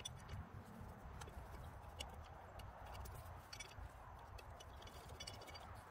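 Faint clicks and light metallic ticks of hand-fitted hardware on an air-spring bracket, with quick runs of ticking about three and a half seconds in and again near the end, over a low steady rumble.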